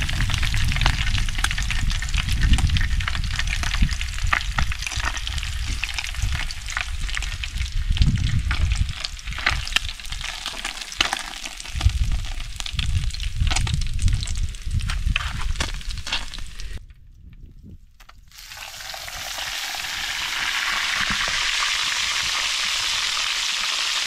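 Fish frying in oil in a pan on a portable gas stove, crackling and spattering with scattered clicks as pieces are turned and lifted with metal tongs. The sound drops away briefly about 17 seconds in, then gives way to a steady, even sizzle as a whole fresh fish fries in bubbling oil.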